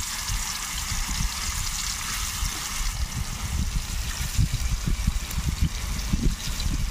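Marinated fish pieces sizzling in hot oil in a steel bowl over a wood fire, a steady hiss, with irregular low rumbling of wind on the microphone underneath.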